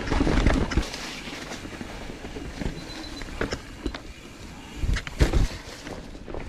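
Mountain bike rolling down a dirt singletrack strewn with dry leaves, picked up by the rider's action camera: a heavy low rumble for the first second, then steady tyre noise with scattered clicks and knocks from the bike over bumps, the loudest of them about five seconds in.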